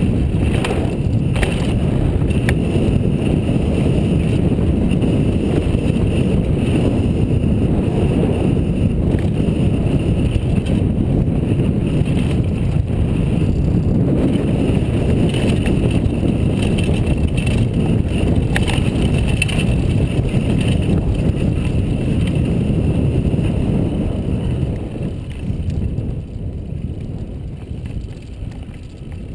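Rushing wind on a helmet-mounted GoPro and mountain bike tyres rumbling over a dirt and grass trail at speed, with a few sharp knocks from bumps. The noise eases over the last few seconds as the bike slows.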